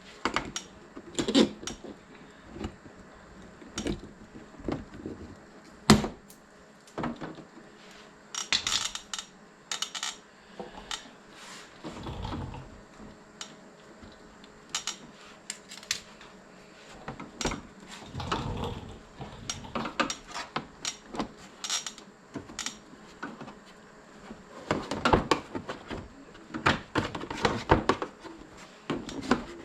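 Hand work with tools and plastic parts: irregular clicks, clinks and knocks of metal on plastic and metal, with two sharper knocks in the first seconds.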